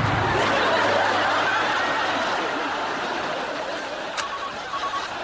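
Studio audience laughing, loudest right after an explosion and fading away over about four seconds.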